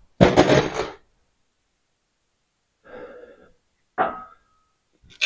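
A short hissing burst, then a faint rustle, and about four seconds in a single metallic clink that rings briefly.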